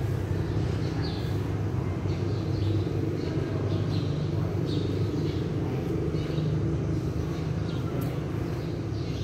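Steady low background rumble, with short bird chirps about once a second.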